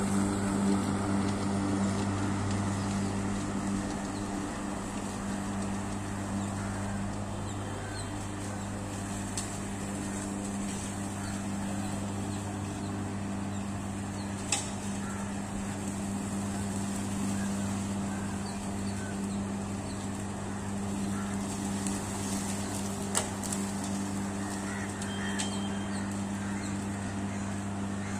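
A 3 HP three-phase electric lawn mower runs steadily as it is pushed through grass, with a low hum that is louder in the first few seconds while the mower is close. Two brief sharp clicks sound over it, one about halfway and one near the end.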